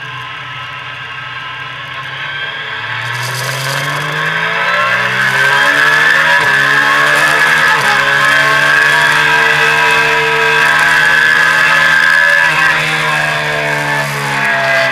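Triumph sports motorcycle engine accelerating hard on track, its note climbing from about three seconds in. There is a brief break in the rising note about six and a half seconds in, then a long high run, and the pitch falls near the end as the throttle eases.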